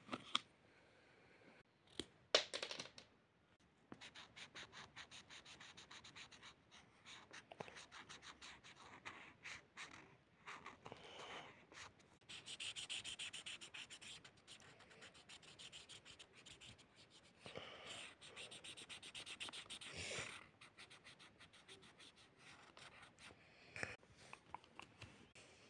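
Felt-tip brush marker scratching on paper in fast, short back-and-forth colouring strokes, with a couple of sharp knocks about two seconds in.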